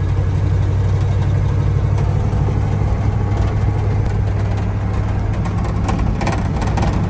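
Old Ford F600 truck's engine running steadily at low speed, heard from inside the cab, with tyres rolling on gravel. A few light knocks or rattles near the end.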